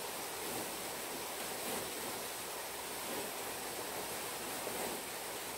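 Steady outdoor hiss with faint rustling of a snowboard jacket's hood as it is pulled and adjusted.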